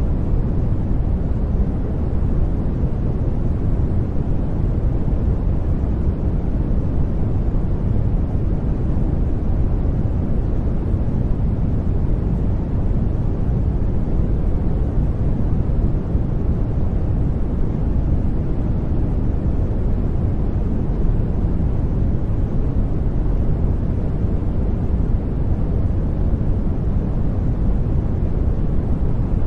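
Steady, unbroken noise machine-style background with no tones, beats or breaks, its weight in the deep, rumbling low end: the 'white noise' bed of a subliminal audio track.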